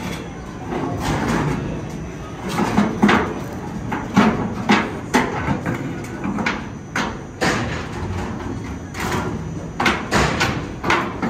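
Irregular metal clanks and knocks, about a dozen sharp strikes, as steel wheel chocks are handled and set against a car's tyres on the metal deck of a car-carrier rail wagon.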